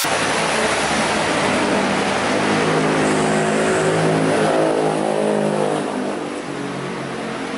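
A motor vehicle passing close by on the road: engine and tyre noise swell to their loudest about halfway through, then the engine note drops and fades as it goes past.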